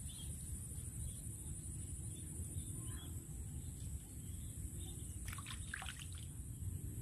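Faint outdoor background in a rice field: a steady high-pitched drone and a low rumble, with a few short chirps about five to six seconds in.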